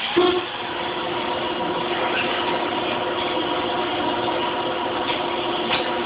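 Clausing Model 13 engine lathe running steadily with a machine hum and whine, after a brief clunk right at the start.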